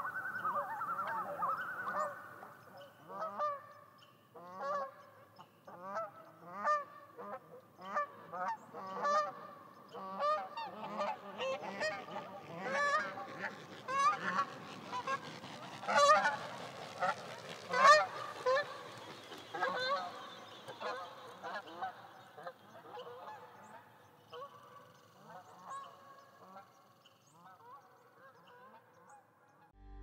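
Canada geese honking: many short overlapping calls from a flock, building to their loudest in the middle and then fading away. It opens with the tail of a long, high, drawn-out call.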